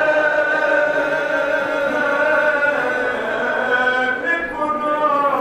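A man chanting a Balti marsiya, an elegy for Imam Hasan, without accompaniment. He draws out one long note that sinks slowly in pitch, then starts a new phrase near the end.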